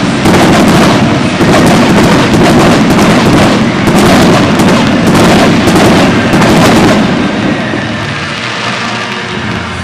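Dense barrage of aerial fireworks bursting, booms and crackles following one another in quick succession, then dying away about seven seconds in.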